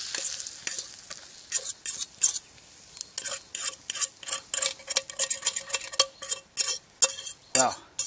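A utensil scraping scrambled egg stuck to the bottom of a hot steel frying pan onto a plate, in many quick repeated strokes with the pan ringing faintly. A fading sizzle from the hot pan is heard at the start.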